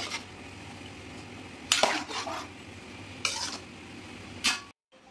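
A metal ladle stirring a thick curry in a metal pot, clinking and scraping against the pot in three short bursts: about two seconds in, about three seconds in, and shortly before the end.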